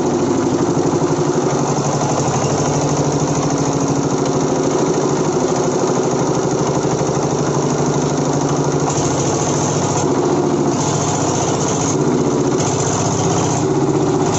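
Single-cylinder stationary diesel engine running steadily at a fast even beat, back in running order after a no-start that was traced by checking that fuel reached the injection pump. From about nine seconds in, water from a bucket pours and splashes into its cooling-water tank, a hiss that comes and goes over the engine.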